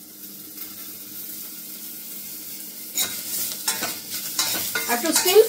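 Sliced onions sizzling steadily as they fry on a high flame in a stainless-steel pot. A spoon stirs them, clinking and scraping against the pot several times from about three seconds in.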